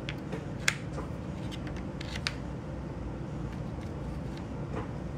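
Plastic pry tool working around an MSI GE40 laptop's screen bezel, with a few sharp plastic clicks as the bezel's clips snap loose: the loudest about a second in, two more at about two seconds and one near the end.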